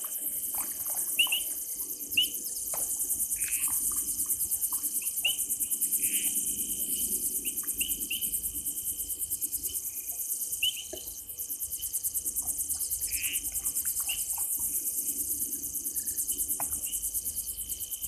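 Night insects, crickets, chirring steadily in a fast, even high pulse, with a thin steady whistle-like tone beneath and scattered short chirps from other animals.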